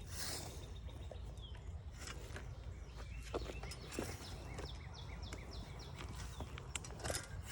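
A small bird calling in a quick run of short, falling chirps, about three a second, for a few seconds in the middle, over a steady low rumble, with a few scattered knocks and rustles from the planting work.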